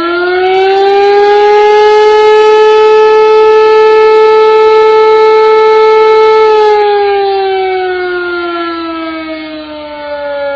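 Civil defense siren sounding one long wail: it finishes climbing in pitch about a second in, holds a steady high tone for about five seconds, then slowly winds down in pitch.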